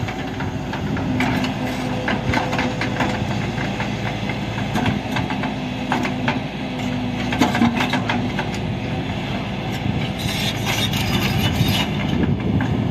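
Crawler excavator's diesel engine running steadily under load, with irregular knocks and clatter of the steel bucket against large boulders as it works the rock pile.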